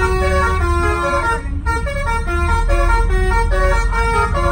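Bus telolet horn, an electronic melody-horn module, playing a quick tune of stepped notes over a low engine rumble; the tune stops at the very end.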